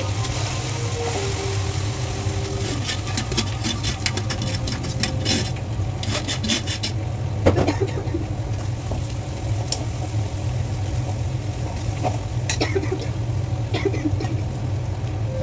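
Steel kitchen pots and utensils clattering and knocking against a steady low hum. A quick run of clicks and knocks comes a few seconds in, and one sharper knock about halfway through is the loudest.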